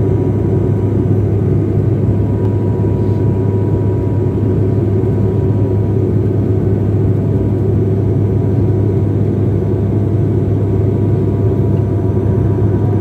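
Airliner cabin noise on the landing approach: a loud, steady, low drone, with a faint steady whine above it.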